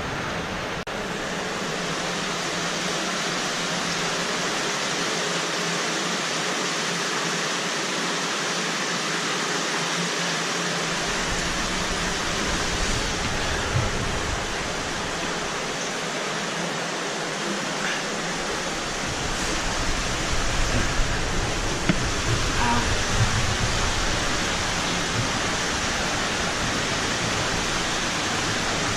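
Fast-flowing stream water rushing through a cave passage, a steady loud hiss. A deeper rumble joins in about a third of the way through, and a few small knocks sound about two-thirds of the way in.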